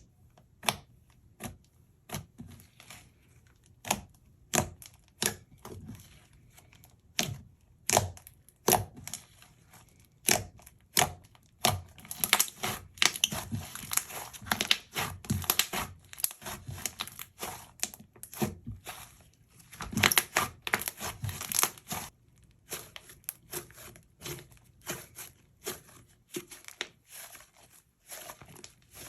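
Thick, glossy slime being kneaded and stretched by hand, with scattered sharp pops and clicks as air pockets burst. The clicks thicken into a dense crackling about twelve seconds in and again around twenty seconds.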